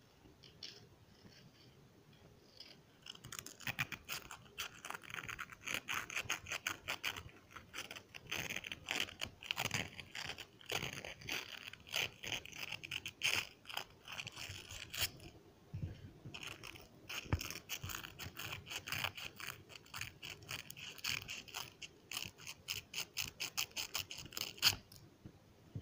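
Clear plastic zip-top bag crinkling and crackling as it is handled close up, in dense rapid crackles that start about three seconds in, pause briefly just past the middle and stop shortly before the end.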